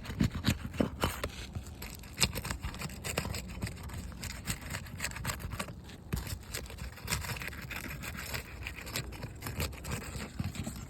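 A metal roof snake scraping and prying under brittle asphalt shingle tabs to break their seals, with many sharp cracks and clicks and loose granules pattering down. The cracks are loudest in the first two seconds or so.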